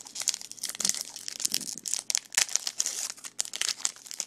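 Foil trading-card pack wrapper being torn open and crinkled, a dense run of sharp irregular crinkles.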